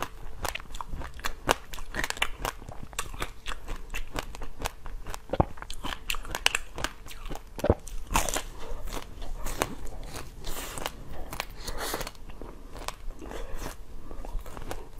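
A person biting and chewing a pink ring-shaped treat close to the microphone, with many sharp crunches and crackles; the strongest crunches come about eight seconds in.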